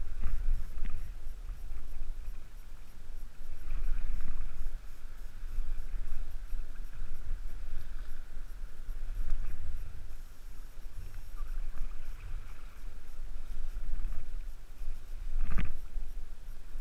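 Sea water sloshing and lapping close to the microphone around a wading angler, with wind rumbling on the mic. There is one sudden sharp thump about a second before the end.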